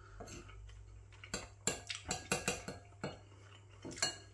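A metal spoon clicking and scraping against a dish as curry is scooped up: a run of about ten sharp clicks, starting about a second in and ending near the end.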